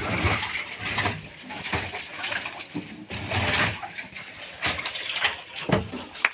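A long-handled landing net scooping fish out of a boat's water-filled fish hold: irregular splashes and sloshing water with scattered knocks.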